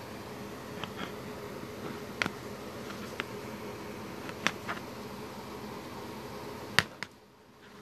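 Handling noise from the plastic headphones being turned and held: about eight short sharp clicks and taps, unevenly spaced, over a steady low hum and hiss. Just after the last clicks the hum drops out for about half a second.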